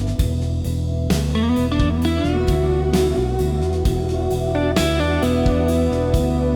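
Instrumental psychedelic rock: a steady bass line and drum beat under a sliding, sustained electric guitar lead.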